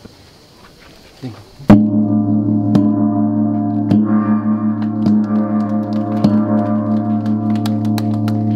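A large bossed bronze gong hung in a wooden frame, struck once with a mallet about two seconds in, then ringing on with a deep, slowly pulsing hum. The strike marks the formal opening of the meeting.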